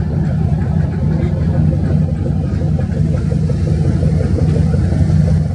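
Boat engine running steadily: a loud, low, unbroken drone with a fast, even pulse.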